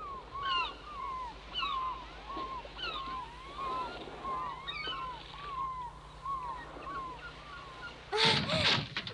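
A flock of gulls crying, many short falling calls in quick succession, overlapping. About eight seconds in there is a louder, sharper burst.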